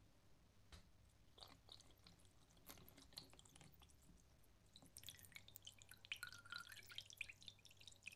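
Rust remover poured from a plastic jug into a shallow plastic tray over a rusty adjustable wrench: faint, with a few scattered drips at first, then a busier patter of splashing and trickling from about five seconds in.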